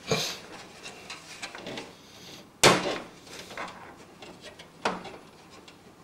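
Knocks and scrapes of a part being handled and pushed into place in a computer tower case, with one sharp, loud knock about two and a half seconds in and another near the five-second mark.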